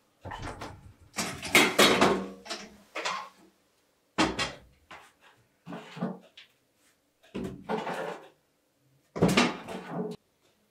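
Irregular knocks and clatter in about six short groups, with pauses between them, like kitchen things being handled.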